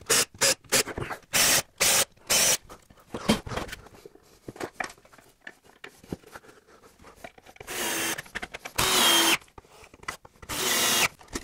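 Cordless drill-driver driving screws into plywood: a quick string of short trigger bursts, then a quieter stretch of light knocks, then a few longer runs of about half a second to a second each near the end.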